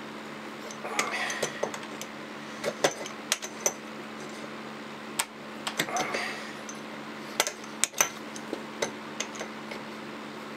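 Steel adjustable wrench clinking and knocking against a 3–4 mm steel strip held in a bench vise as it is levered to bend the strip over at a silver-soldered joint. There are irregular metallic clicks, the sharpest knocks near the end, and two short scraping creaks about a second in and about six seconds in. A steady low hum runs underneath.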